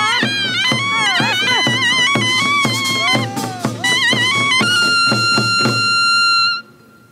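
Korean farmers' band music: a shrill, loud reed wind melody with sliding, wavering notes over steady drum beats about three or four a second. The drums stop partway through while the wind instrument holds one long note, which then cuts off suddenly near the end.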